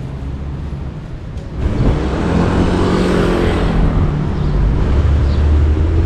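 City street traffic: about one and a half seconds in, a car's engine swells and passes close, its note rising and then falling, over a steady low traffic rumble.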